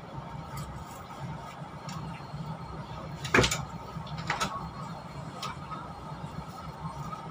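Steady low hum inside a stationary passenger train carriage, with a sharp knock about three and a half seconds in and a lighter one a second later.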